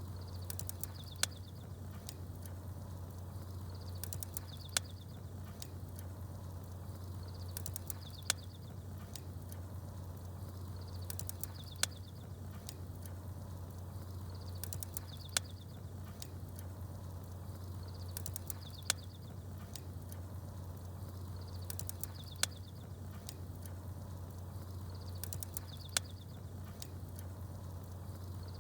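Campfire and small songbirds: short high bird chirps with a sharp crackling pop, recurring in an even cycle about every three and a half seconds, over a steady low fire rumble.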